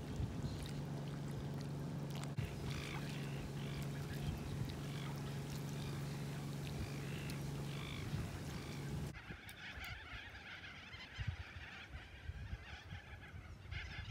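Lakeside ambience: a steady low hum with scattered short, high animal calls. About nine seconds in, it cuts to a flock of corellas calling over and over.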